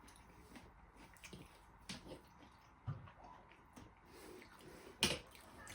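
Faint eating sounds: soft wet chewing with scattered small clicks and taps, and one sharper click about five seconds in.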